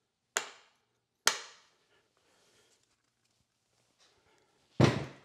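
Two sharp clacks about a second apart as 3D-printed PLA battery terminal covers are set down on a wooden workbench, then a louder, deeper thump near the end.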